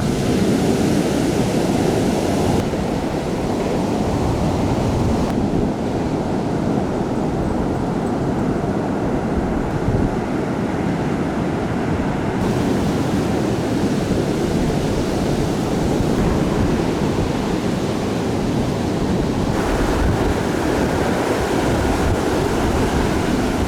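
Storm-driven surf breaking steadily along the beach, a continuous rushing noise, with strong wind rumbling on the microphone. The higher hiss fades and comes back several times.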